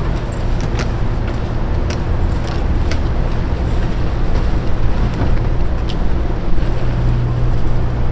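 Steady low mechanical hum, with a few faint clicks over it.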